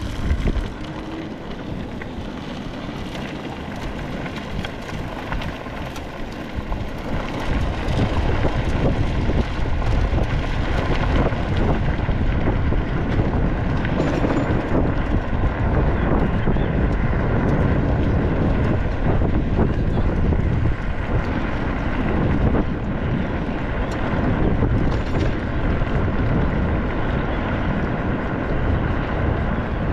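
Motorbike running on the move, with wind buffeting the microphone. The engine noise and wind rise about seven seconds in as it picks up speed, then hold steady.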